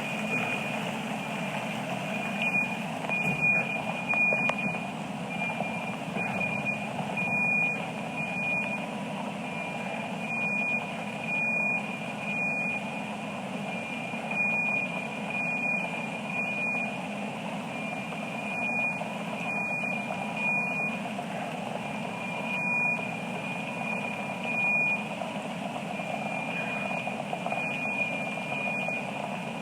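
A high-pitched electronic alarm tone sounds continuously, swelling and fading slightly, over a steady wash of background noise.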